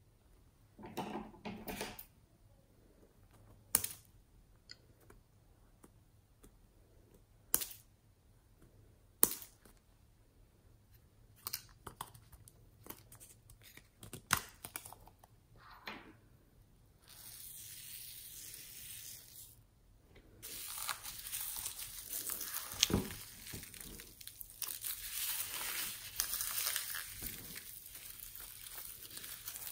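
Hands kneading and squeezing slime packed with foam beads and glitter, giving a dense crackling and popping from about twenty seconds in. Before that there are scattered taps, clicks and soft squishes as squishy toys are handled over the bowl, and a few seconds of steady hiss.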